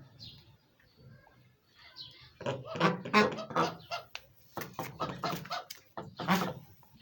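White domestic ducks quacking in a rapid series of loud, repeated quacks that begin about two and a half seconds in, after a few faint chirps.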